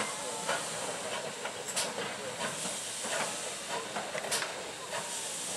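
GWR 5700-class pannier tank steam locomotive hissing steam steadily as it moves slowly forward, with a few short sharp clicks through it.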